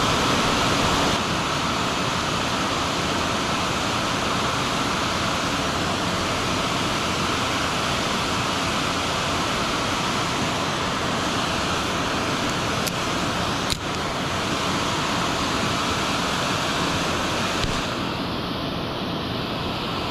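Fast creek water rushing steadily, a constant even roar. Two short clicks come just past the middle.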